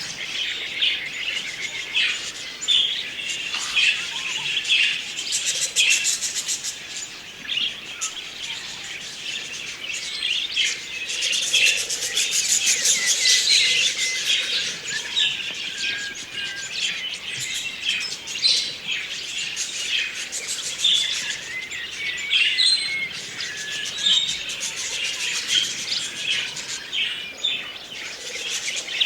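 A flock of budgerigars chirping and warbling, many birds calling over one another in a continuous chatter. The buzzy chatter swells a little before the middle.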